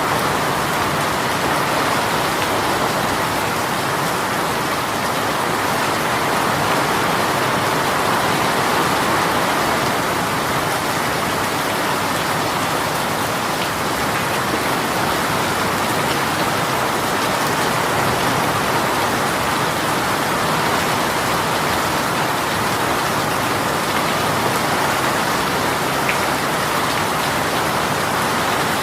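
Heavy rain shower pouring steadily, a dense even hiss of rain falling on surfaces.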